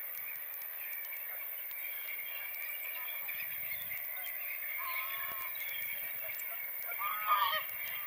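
A flock of geese honking off in the background, a steady mass of calls, with a couple of louder, nearer honks about five seconds in and again just past seven seconds.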